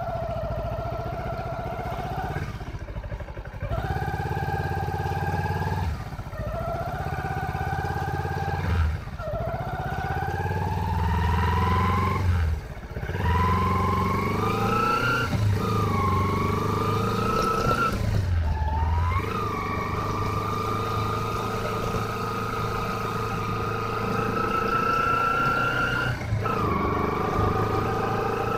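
Motorcycle engine running under way, its pitch climbing in each gear and breaking off at a gear change every few seconds, then holding nearly steady for a long stretch near the end.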